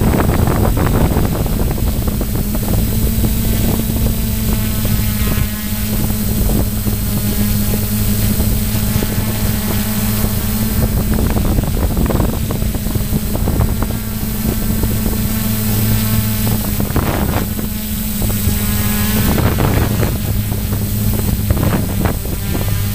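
Radio-controlled model airplane's motor and propeller running at a steady pitch, with wind buffeting the onboard microphone in gusts.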